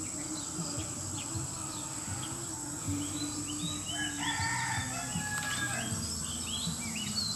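Rural bird ambience: small birds chirping in short, repeated stepped phrases, with a distant rooster crowing from about three to five seconds in, over a steady high insect drone.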